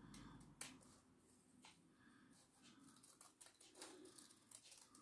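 Faint, irregular snips of small scissors cutting through green paper, with the light rustle of the paper being turned between cuts.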